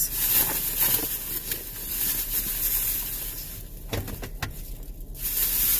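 Plastic rustling and crinkling as items are handled, coming and going, with a couple of light knocks about four seconds in.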